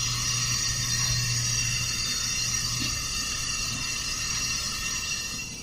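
Steady hiss of compressed shop air pressurizing a cylinder of a 4.8 L Chevy V8 through the spark plug hole, with air leaking past the piston rings into the crankcase (blow-by). A low hum runs underneath and fades a few seconds in.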